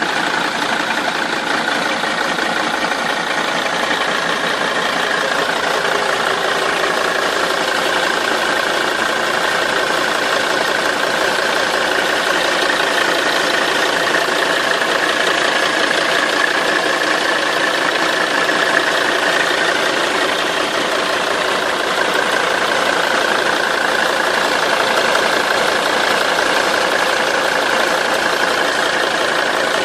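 Mercedes-Benz 270 CDI five-cylinder diesel engine running at a steady speed with a rattling noise that the owner cannot trace to a part.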